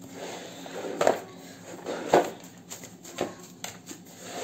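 Gloved hands punching down risen pizza dough in a bowl to knock the air out, with about four dull thumps roughly a second apart.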